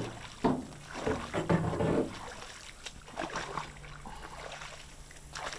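A long harpoon pole used as a paddle swishing and splashing through the water beside an aluminium jon boat. There are several separate strokes, some pushing through floating water hyacinth.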